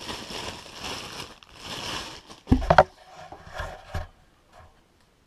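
Handling noises from gear being unpacked: two stretches of scraping or rustling, then a few sharp knocks about two and a half seconds in, with softer handling sounds after them.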